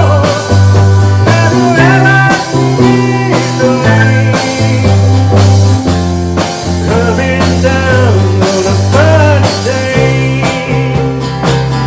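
Rock music with no vocal: a lead guitar plays bent, wavering notes over a bass line that changes note about once a second, with steady drums.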